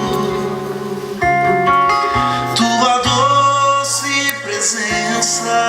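Music: an instrumental break in a gospel worship song, with guitar carrying the sustained chords between sung lines.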